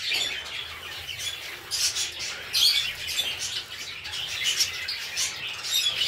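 A flock of cockatiels chirping and calling over one another, many short high calls overlapping without a break.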